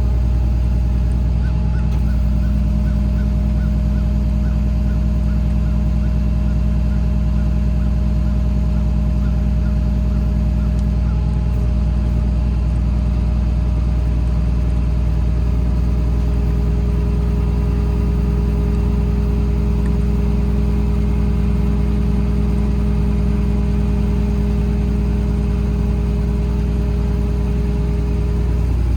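Diesel engine of a Kenworth T370, a PACCAR PX-6 inline-six, running steadily at a constant speed.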